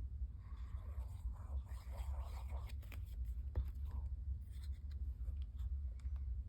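Paper card pieces being handled and set in place: faint rustling in the first couple of seconds and scattered light taps, one sharper about three and a half seconds in, over a steady low hum.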